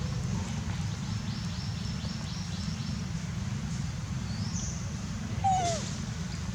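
Outdoor ambience with a steady low rumble. Birds give a quick run of about eight high chirps early on. A single short falling animal call, the loudest sound, comes about five seconds in.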